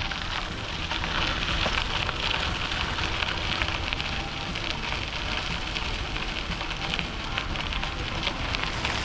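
Riding noise from a bicycle under way: a steady crackling rush from the tyres rolling on the path, over a low wind rumble on the microphone.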